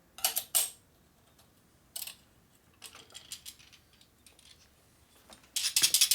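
Loose steel balls and metal parts of a Harley clutch's centrifugal assist clinking as the assembly is handled. A few short metallic clinks come first, then a dense rattle of the balls near the end.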